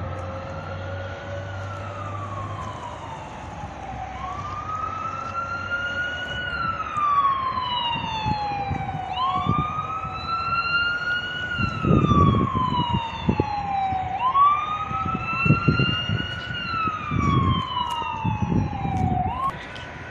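A siren wailing in repeated cycles, each a quick rise in pitch followed by a long slow fall, about every five seconds. Low rumbling bursts come in over the second half.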